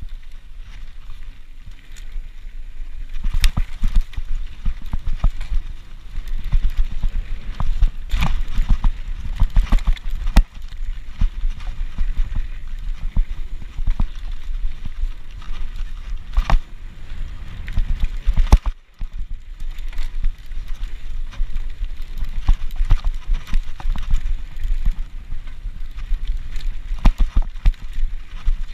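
Mountain bike being ridden fast down a dirt trail: tyre and trail rumble with frequent sharp knocks and rattles as it goes over bumps. The sound drops away for a moment about two-thirds of the way through.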